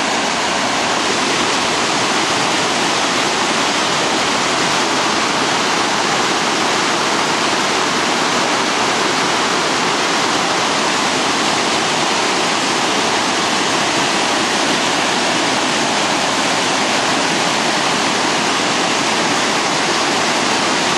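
Loud, steady rush of river water pouring over a concrete weir and churning into white water below it.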